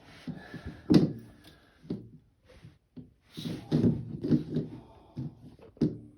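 Irregular knocks, clicks and clatter of hard parts being handled and set in place on a washing machine's direct-drive motor assembly. The loudest is a sharp knock about a second in, followed by a burst of clattering past the middle and another knock near the end.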